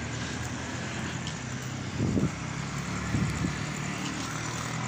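Night-time city street with a motor vehicle engine running steadily. Two short low thumps on the microphone, about two and three seconds in, are the loudest sounds.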